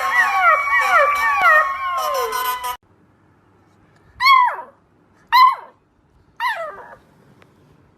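Puppies howling: first several overlapping, repeatedly falling howls over one held note, which cut off abruptly about three seconds in. Then a single puppy gives three short howls, each sliding down in pitch, about a second apart.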